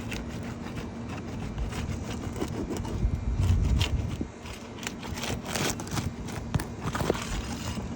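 A pry tool worked under an asphalt roof shingle to break its sealant strip: scraping, with many short sharp clicks and crackles as the seal comes loose. A louder low rumble comes about three seconds in.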